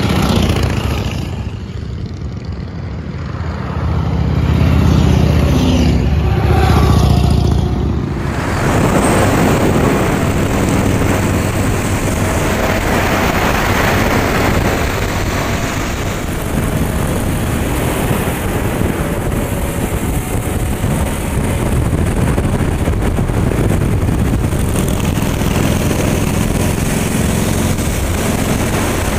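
Old Harley-Davidson motorcycles passing by, their engines running and the sound rising and falling as each bike goes past. From about eight seconds in, a bike's engine is heard from a moving camera alongside it, heavily covered by wind noise.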